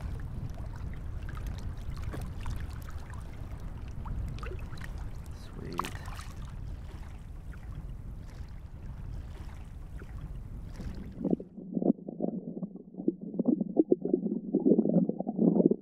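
Wind rumbling on the microphone over shallow lapping water for the first eleven seconds or so. Then the sound cuts to a muffled underwater recording from a submerged camera, full of crackling and bubbling water noise, as a bonefish swims off over the seagrass.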